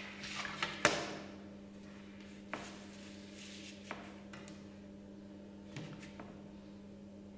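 A few light clicks and taps of a plastic ruler and pencil on paper on a tabletop as a line is drawn, over a steady low hum.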